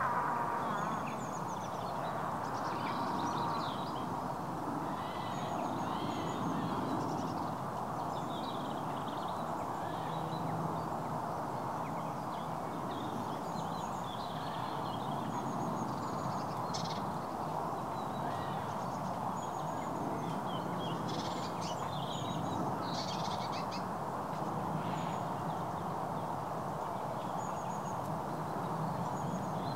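Steady rush of shallow stream water flowing, with short bird calls dotted above it throughout.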